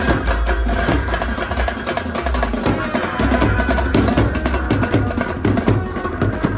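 Indian wedding-style brass band playing: rapid drumbeats under held horn and saxophone notes.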